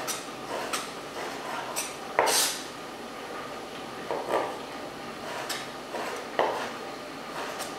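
Kitchen knife cutting strips of pancetta and knocking on a wooden cutting board in short, irregular cuts, roughly one every half second to a second. The loudest knock comes a little over two seconds in.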